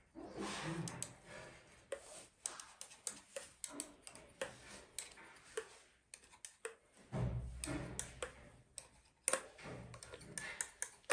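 Light, irregular clicks and taps from a long-spouted oil can being worked over a diesel cylinder head's valve train while the tappets are oiled. A short, duller rumble of handling comes about seven seconds in.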